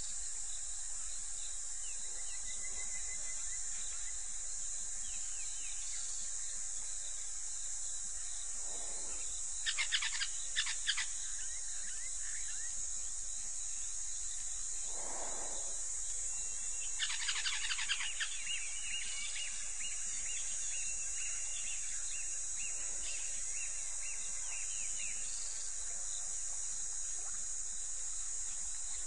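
African bush ambience: a steady high insect drone with bird calls over it. Scattered chirps come near the start, with two bursts of rapid calls about ten and seventeen seconds in, followed by a trill.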